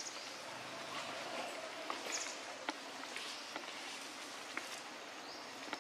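Outdoor background ambience: a steady hiss with scattered soft clicks and a couple of brief high chirps, one about two seconds in and a rising one near the end.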